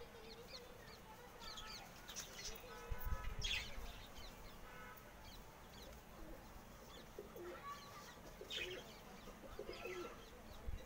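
Fantail pigeons cooing faintly, with short high chirps of small birds in between.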